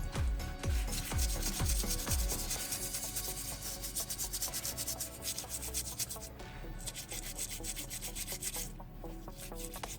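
Rapid rubbing strokes as the water-damaged iPhone 11 logic board is scrubbed clean with cleaning spray, under background music with a bass beat during the first two seconds.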